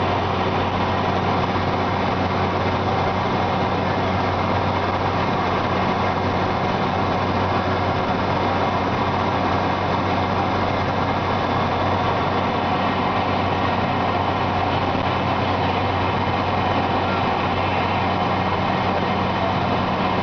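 Steady drone of a skydiving aircraft's engines and propellers, heard loud inside the cabin during the climb to jump altitude, with an even low hum and rushing noise that does not change.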